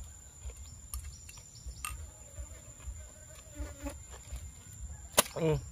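Housefly buzzing around the food for a couple of seconds in the middle. Near the end there is a sharp click and then a short voiced sound from the man.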